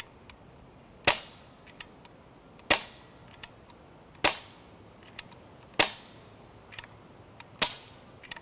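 Air Venturi HellBoy .177 CO2 BB rifle firing five semi-auto shots, each a sharp crack with a short tail, spaced about a second and a half apart. A fainter click follows most shots. The last, weaker shot is a dry fire with the gas running out and no BB, just a puff of CO2.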